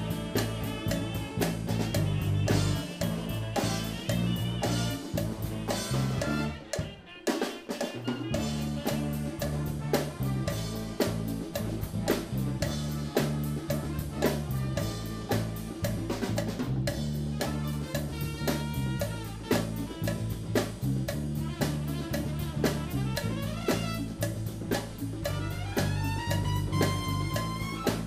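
Live big band jazz: a drum kit keeps a steady beat with rimshots under a walking bass guitar line and trumpets. About seven seconds in the band stops almost completely for a beat or two, then comes back in, and near the end the horns play a rising line.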